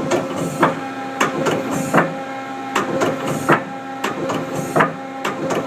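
Tool turret of a 1997 Mazak Quick Turn 20 CNC lathe indexing from station to station, a sharp clunk about twice a second, over the machine's steady hum.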